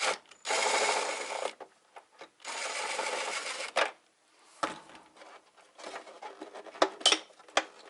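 A screwdriver working on a UPS's plastic case: two rasping, rattling bursts of about a second each, then scattered clicks and taps of plastic parts being handled.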